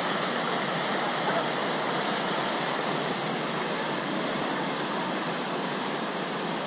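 Shallow river water rushing and rippling steadily over rocks.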